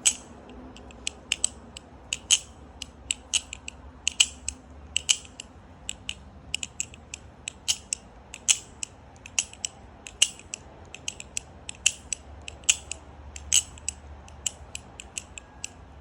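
The One Falcon balisong (butterfly knife) being flipped: its handles and blade tap and click together in irregular sharp clicks, several a second.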